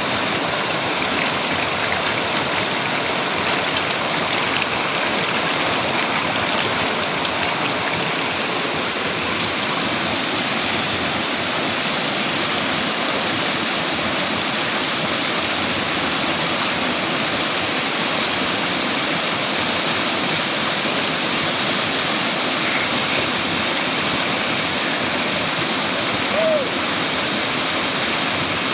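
Steady rushing of a creek's flowing water, an even, unbroken wash of sound, with a brief squeak near the end.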